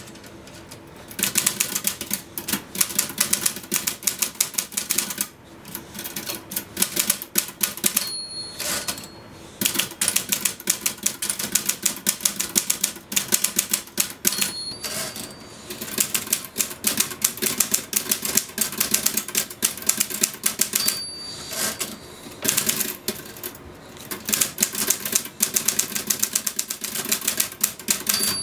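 Typewriter keys clacking in rapid, nearly unbroken runs of typing. Every six or seven seconds the typing stops briefly and a short high ding sounds, the typewriter's end-of-line bell, before the typing resumes.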